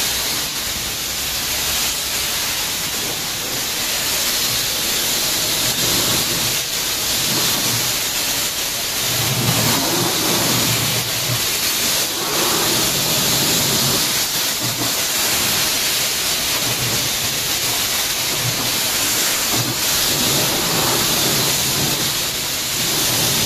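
High-pressure washer jet spraying water onto a car's bonnet, rinsing off the wax shampoo after the hand wash: a steady, loud hiss of the jet and the water striking the paint.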